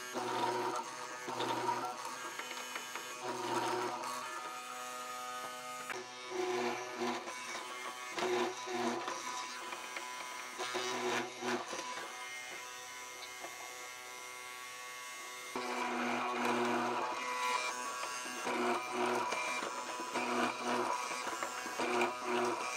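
Hollow-chisel mortising machine running, its chisel and auger plunged repeatedly into pine to cut mortises, with background music.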